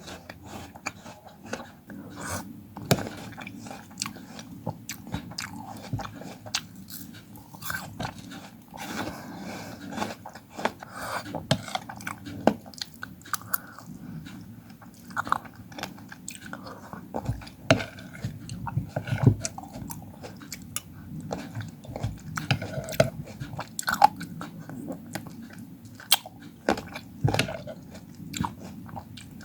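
Close-miked eating of fruit: bites and chewing with many irregular crisp crunches and wet mouth sounds.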